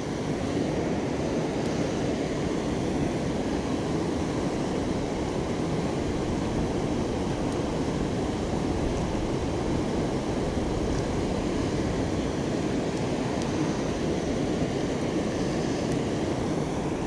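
River water rushing over shallow rocky rapids, a steady rush of noise with no breaks.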